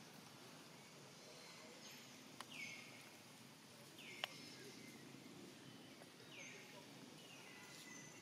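Faint, high animal calls repeated every second or two, with two sharp clicks in the middle.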